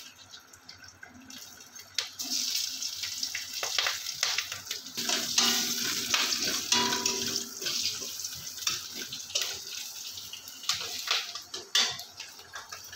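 Nigella seeds and slit green chillies sizzling lightly in a little oil in a steel kadai. A metal spatula scrapes and clicks against the pan as they are stirred, starting about two seconds in.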